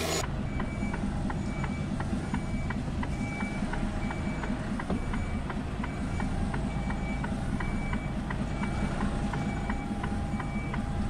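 HGV's diesel engine running low while the lorry reverses, with its reversing beeper sounding a short high beep about every two-thirds of a second and quick ticking between the beeps. From about halfway a steady tone is held for a few seconds.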